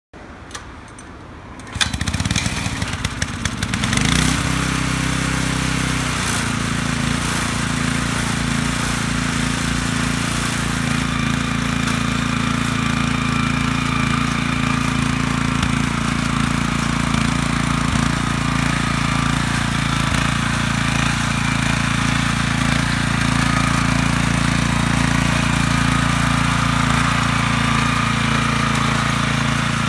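Mitsubishi G510L 5 hp single-cylinder engine on a small crawler carrier starting about two seconds in. It runs unevenly at first, picks up at about four seconds, settles about six seconds in, and then runs steadily while the rubber-tracked carrier drives along.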